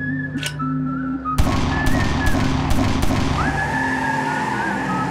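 Music with held tones, cut into about a second and a half in by a sudden burst of noise, then four sharp cracks about half a second apart, with the music carrying on underneath.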